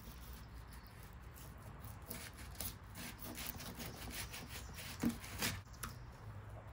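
Fillet knife cutting down along a largemouth bass's backbone on a cardboard board: a quiet run of short scraping strokes, with one sharper knock about five seconds in.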